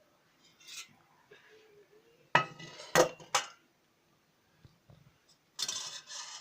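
Kitchenware being handled: a pot, strainer and glass give three sharp clinks and knocks between about two and three and a half seconds in, then a short scraping rustle near the end.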